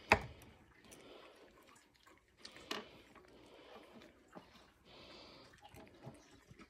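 Small dog nibbling at pieces of a hard dried green-bean dog treat on a wooden tabletop: faint scattered crunches and ticks, with one sharp click right at the start and another a little under three seconds in.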